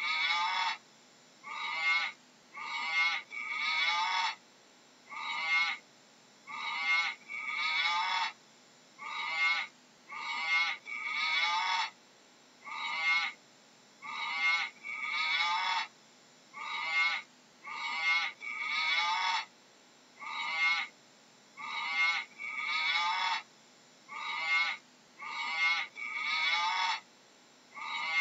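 An animal calling over and over in short, high-pitched calls, about one every second or so, with brief pauses between them.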